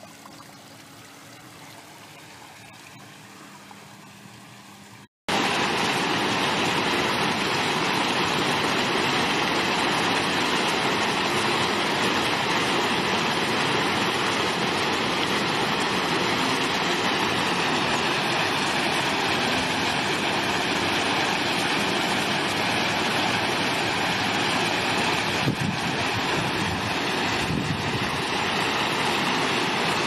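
Water trickling quietly over a rolling granite sphere fountain. About five seconds in it cuts abruptly to a much louder, steady splashing of many small ground-level water jets around a granite ball fountain.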